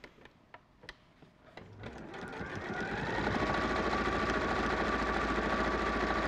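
Domestic sewing machine sewing a straight-stitch seam: a few small clicks, then the motor starts about a second and a half in, speeds up over a second or so, runs steadily, and stops suddenly.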